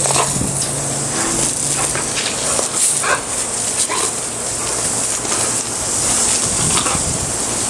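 Garden hose spray nozzle hissing steadily while a dog bites at the water stream, giving several short vocal sounds as it snaps.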